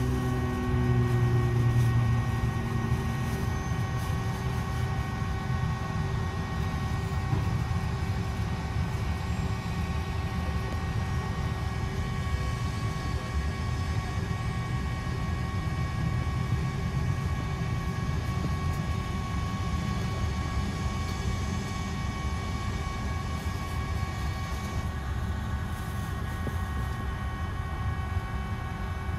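Jet aircraft running steadily: a constant whine made of several held tones over a low rumble, a little louder in the first couple of seconds.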